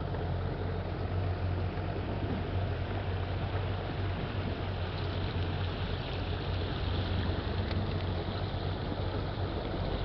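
A boat's motor running steadily while the boat is under way: a low, even drone under a steady rushing hiss of water.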